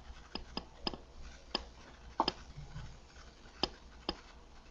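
About eight sharp, faint clicks at uneven intervals, two of them close together a little after two seconds in, over a low steady hum.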